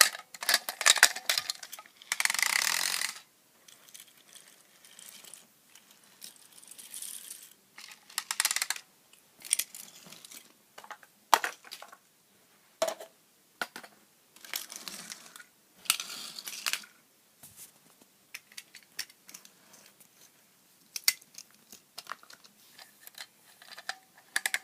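Toy vehicles being moved around by hand: scattered clicks, knocks and clatter, with a few short scraping rushes.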